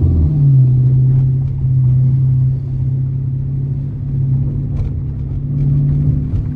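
Dodge R/T's V8 engine droning steadily as the car cruises.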